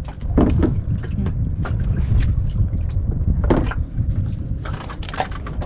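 Wind buffeting the microphone on an open boat at sea, a heavy steady rumble, with a few short knocks and clicks as a caught fish and its line are handled on the boat's slats.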